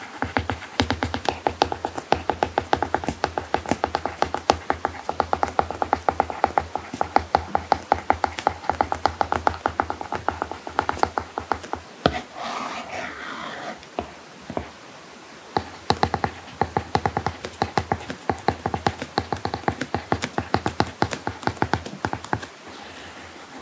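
Apple Pencil nib tapping and scratching on an iPad screen covered with a paperlike matte protector during handwriting: quick, irregular clicks, with a scratchier stretch of sliding strokes about twelve seconds in.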